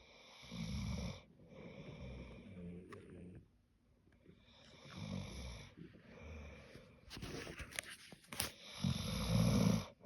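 A pet dog snoring: rough snores on each breath, repeating every second or two with short pauses between them, the loudest near the end. A few short sharp clicks or snorts come about seven to eight seconds in.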